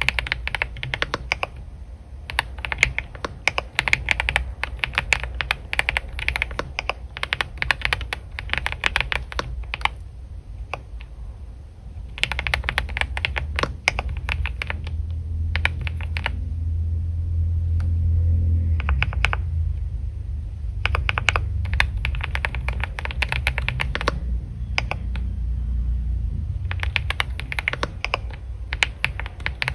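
Computer keyboard typing in quick runs of key clicks, broken by short pauses, notably around a third of the way in and again in the second half. A low rumble sits underneath and swells about halfway through.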